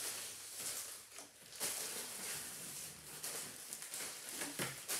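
Plastic poly mailer bags rustling and crinkling as they are pulled out of a cardboard box and handled.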